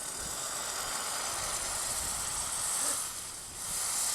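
Red-hot steel rebar hissing with steam, as when it is quenched in water: a steady high hiss that dips briefly about three and a half seconds in, then surges again and cuts off.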